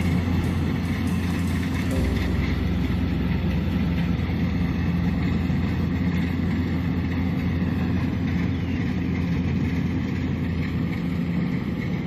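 Kubota DC-70 combine harvester's diesel engine running steadily under load while harvesting rice, a constant low hum with mechanical noise.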